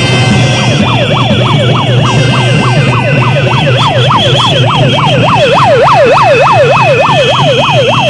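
A siren in fast yelp mode, rising and falling about three times a second. It starts about a second in, over the continuous noise of a street protest crowd and a steady high-pitched tone.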